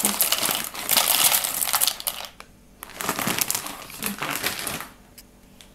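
Dry fusilli pasta poured from a plastic bag into a plastic container, the pieces rattling in with the bag crinkling. Two pours with a short pause between them, the second stopping about five seconds in.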